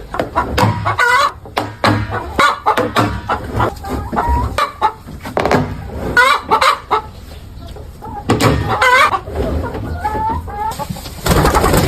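A flock of chickens clucking and calling, with many short overlapping calls. A louder burst of noise comes about a second before the end.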